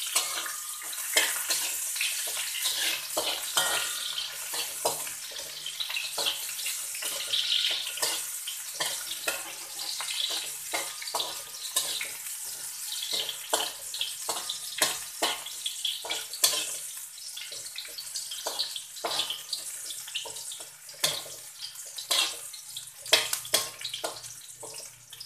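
Garlic cloves and ginger strips sizzling in hot oil in a wok, with a spatula scraping and knocking against the wok as they are stirred.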